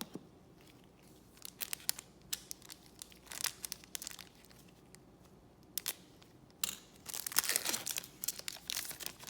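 Crinkling of a trading-card pack wrapper and cards being handled, in scattered short bursts that are busiest in the last few seconds.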